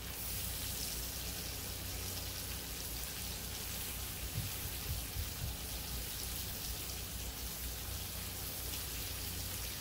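Fish in sauce sizzling in a wok over a gas burner: a steady, even hiss, with a few soft knocks about halfway through.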